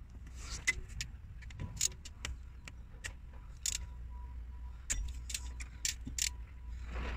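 Ratchet and Torx bit socket clicking and clinking in short, irregular runs while working a bolt on the engine.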